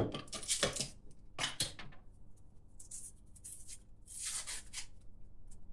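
Glass beer bottle being opened: a few sharp clicks and knocks of glass and metal in the first two seconds, then a short hiss about four seconds in as the crown cap is prised off.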